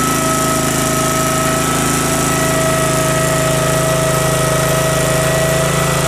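Case 446 garden tractor engine idling steadily and running good, with a steady whine over the engine note.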